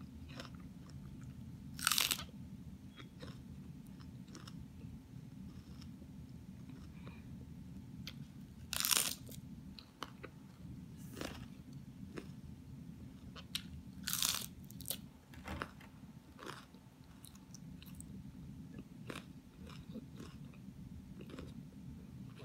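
Someone biting and chewing a leaf of grilled romaine lettuce: wet crunches in a few loud bites about 2, 9 and 14 seconds in, with quieter chewing crunches between them. A steady low hum runs underneath.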